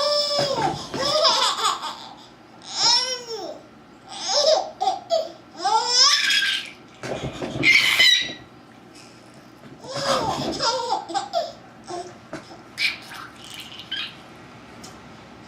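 A baby laughing and squealing in high-pitched bursts, the pitch arching up and down, with short pauses between bursts.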